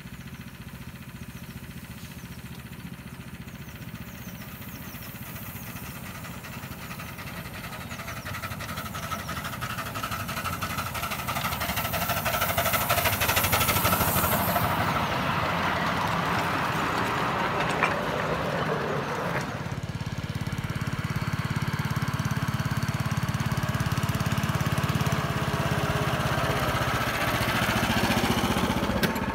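Small engine of a 7 1/4 in gauge miniature railway locomotive running as the train approaches and passes close by with its wagons. The engine is loudest as the train goes past, about halfway through, then becomes a steady low hum heard riding aboard a train.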